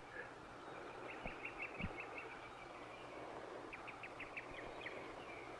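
Faint outdoor ambience of birds chirping in short runs of quick high notes, twice, with two soft low thuds between one and two seconds in.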